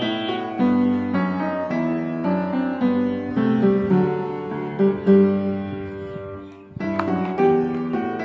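Background piano music, a melody of separate notes at a steady level, with a brief dip about two-thirds of the way through before it carries on.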